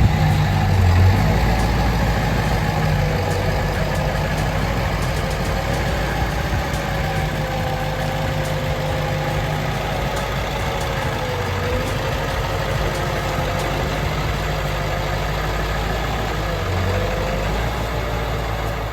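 A vehicle engine running steadily, with a thin whine that wavers slightly in pitch over it.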